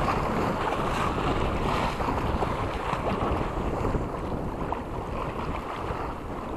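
Wind buffeting the microphone over the steady rush of a choppy sea, easing slightly about two thirds of the way through.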